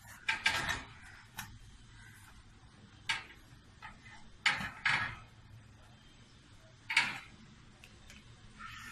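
A modular kitchen trolley drawer being handled: a series of sharp clacks and rattles, a cluster right at the start, one about three seconds in, a pair about halfway through and one more about seven seconds in.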